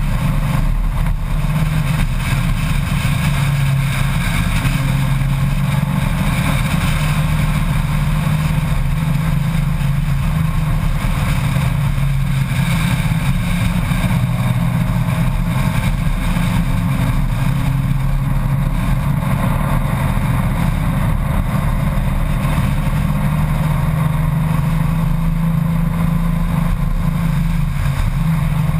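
Honda Gold Wing motorcycle engine running at a steady cruise, its pitch drifting slightly up and down with the throttle, under steady wind and road noise on the bike-mounted microphone.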